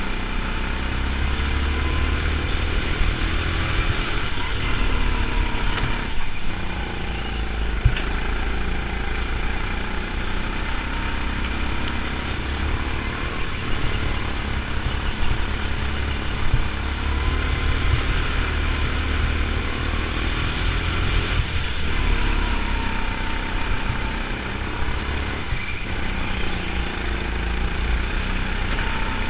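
Go-kart engine heard on board, its pitch rising and falling over and over as the kart accelerates and slows through the corners of a racing lap, with a couple of sharp knocks about six and eight seconds in.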